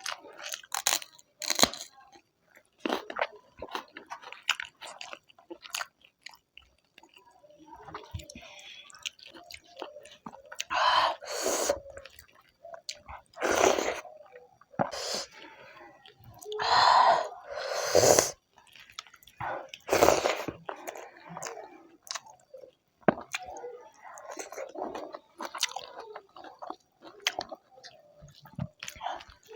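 A person chewing a mouthful of food close to the microphone, with crunching and many short wet mouth clicks, and several louder chewing bursts along the way.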